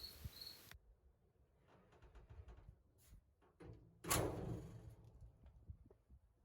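A single heavy thunk about four seconds in, like a panel being shut, that rings and dies away over about a second, with faint scattered clicks around it.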